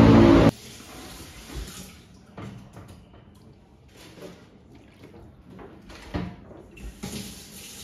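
Loud steady outdoor city noise that cuts off abruptly about half a second in. Then a metal ladle scooping broth from a stainless steel pot and pouring it into a steel pan: light splashes and scattered clinks of metal on metal.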